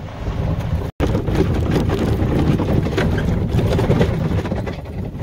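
Wind buffeting the microphone while riding in an open-sided cart, over a steady low rumble, broken by a split-second gap about a second in.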